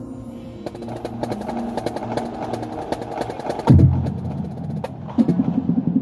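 High school marching band playing: a soft held chord with rapid, sharp percussion clicks from about a second in, then the band comes in suddenly and loud with low brass chords about halfway through, and again near the end.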